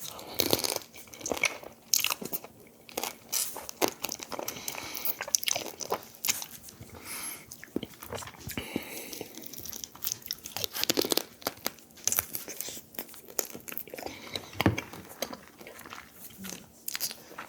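Close-up eating of soy-sauce marinated raw crab (ganjang gejang): irregular biting, crunching and cracking of the shell with chewing, many sharp crackles in no steady rhythm.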